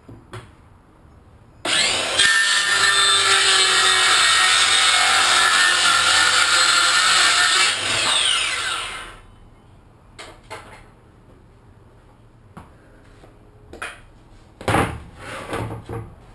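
Circular saw starting up and cutting through a board for about six seconds, then its blade winding down. Afterwards come a few light knocks and a louder clatter near the end as the cut strips are handled.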